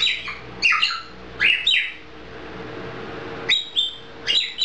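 African grey parrot giving short, high whistled chirps, about seven of them in twos and threes, some sliding down in pitch.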